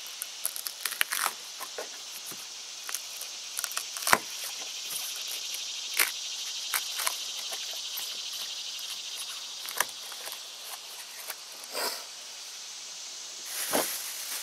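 Spoon scraping and digging foam out of a hole cut in a plastic boat's deck, heard as short irregular scrapes and clicks, with a longer, louder scrape near the end. A steady chirring of insects runs underneath.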